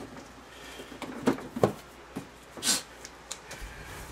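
Knocks and clatter from handling the engine cowling of a Suzuki 15 outboard, two sharp knocks just past a second in, then a short hissing swish and a few light clicks.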